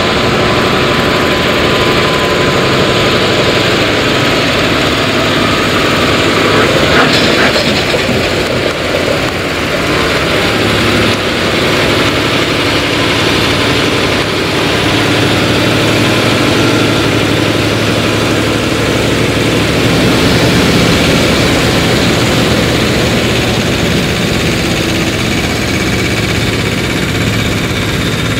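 Heavy-haulage truck diesel engines running steadily, a continuous engine drone, with a short louder burst of noise about seven seconds in and a low hum that strengthens about halfway through.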